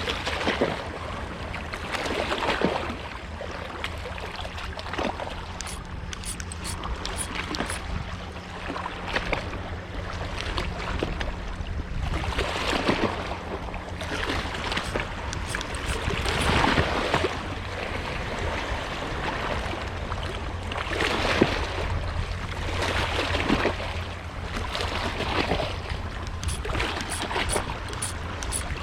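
Water sloshing and lapping against a small boat's hull in swells every few seconds, over a low steady hum.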